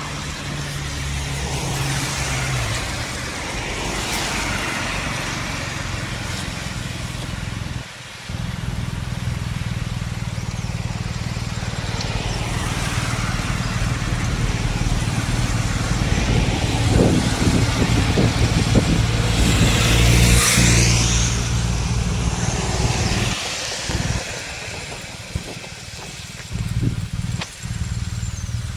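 Motor vehicle engines running and passing on a street, over a steady low rumble. The sound gets louder around two-thirds of the way through and dips out briefly about eight seconds in and several times near the end.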